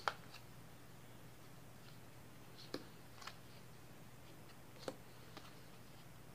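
Playing cards being laid down and flipped over on a wooden table: a handful of faint, sharp clicks and snaps, a pair just at the start and others near the middle and later, over a faint steady low hum.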